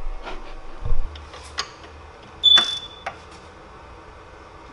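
Hand tools on an engine: a few separate metallic clicks and knocks from a ratchet wrench being worked. There is a dull knock about a second in, and the loudest click comes about two and a half seconds in with a short ringing note.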